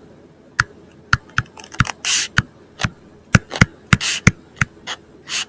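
A stylus writing on a tablet: an irregular string of sharp taps as the pen tip touches down, with a few short scratchy strokes as it drags across the surface.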